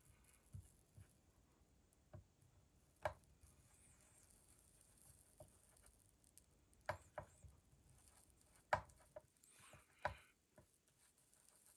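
Near silence broken by scattered light taps and clicks, one about three seconds in and several more between seven and ten seconds in. The sounds are a hot plastic-welding tool and plastic fill rod being worked against a plastic gas tank.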